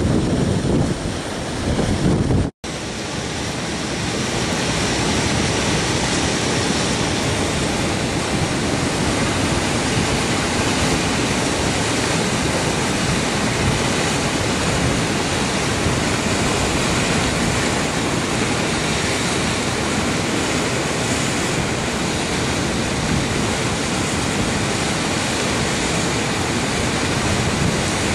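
Muddy flash-flood water rushing past, a steady, dense noise of fast-moving water. The sound breaks off for an instant about two and a half seconds in, then carries on evenly.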